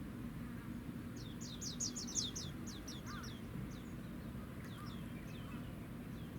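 A small songbird sings a quick run of high notes that fall in pitch, starting about a second in and tailing off into scattered single notes. Under it is a steady low hum with a faint tone: the engine and machinery sound of a large warship.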